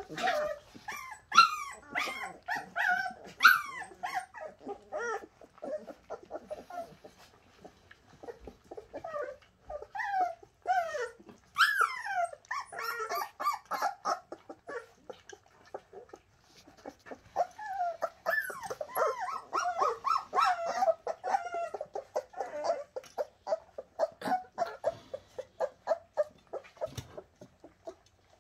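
Bernese mountain dog puppies whimpering and yipping: many short, high cries that slide up and down in pitch, coming in flurries with brief lulls between them.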